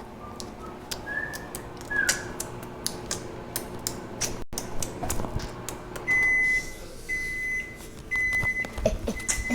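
Microwave oven running with a steady hum and scattered light clicks. About six seconds in its end-of-cycle alarm starts: high beeps of about half a second each, roughly once a second, signalling that the cooking time is up.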